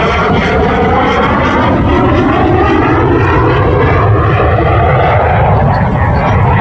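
A P-51 Mustang's Packard-built Merlin V12 piston engine running at display power as the fighter flies past, its steady drone slowly sliding in pitch.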